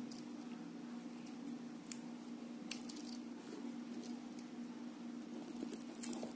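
Shrink-wrapped cardboard box handled and turned in the hands: faint plastic crinkling with a few brief crackles, over a steady low hum.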